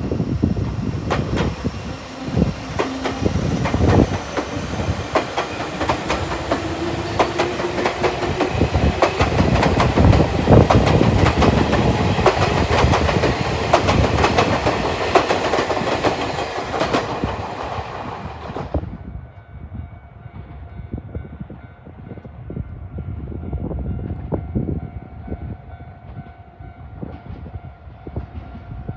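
An electric train passing close by, its wheels clacking over the rail joints with a heavy rumble. About two-thirds of the way through the sound drops off abruptly to a quieter rumble with a steady high ringing.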